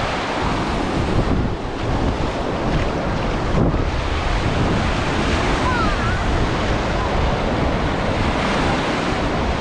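Small waves breaking and washing up the sand at the water's edge, with wind buffeting the microphone as a steady low rumble.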